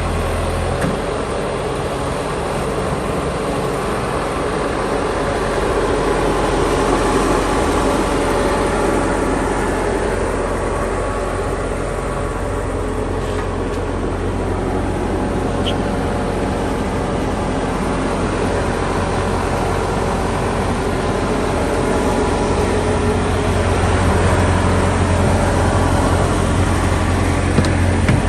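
Bobcat T650 compact track loader's diesel engine running steadily, its note and level shifting a little now and then.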